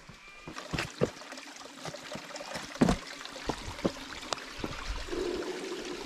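Footsteps knocking and scuffing on slippery rock and leaf litter, several separate steps, over a faint steady wash of running creek water.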